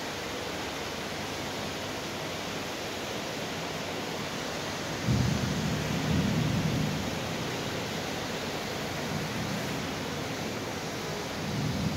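Steady hiss of rain and of cars driving through floodwater on a flooded road. A low rumble comes in suddenly about five seconds in and lasts a couple of seconds, with a shorter one near the end.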